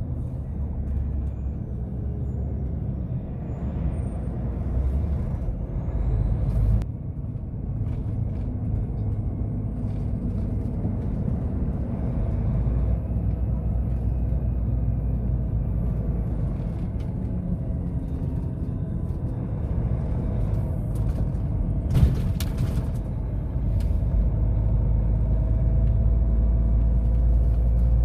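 Container truck driving, heard from inside the cab: a steady low rumble of engine and road noise. A short sharp hiss comes about three-quarters of the way through.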